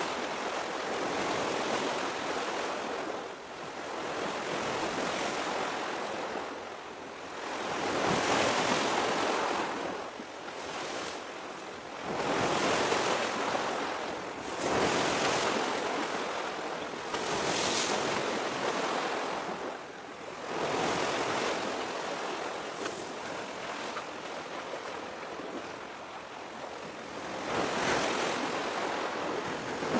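Surf: small waves washing in, a hiss that swells and fades every few seconds.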